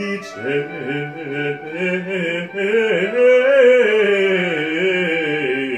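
Male bass voice singing a long melismatic run on the word "changed" with vibrato, over musical accompaniment.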